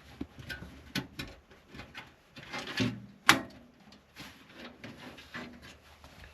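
Parts being handled and fitted into a computer case: scattered sharp clicks and short scrapes, the loudest click a little past three seconds in.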